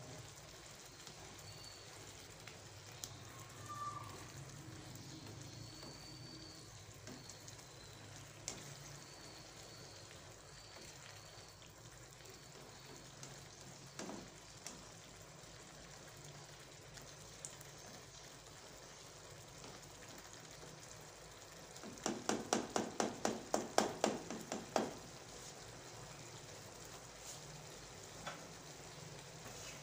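Potatoes in tomato masala sizzling steadily in an oiled frying pan. About two-thirds of the way through, a quick run of about a dozen sharp pulses, around four a second for some three seconds, stands out as the loudest sound.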